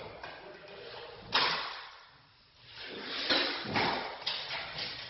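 A series of quick, rough scraping strokes of a hand tool against drywall, one about a second in and several more close together near the end.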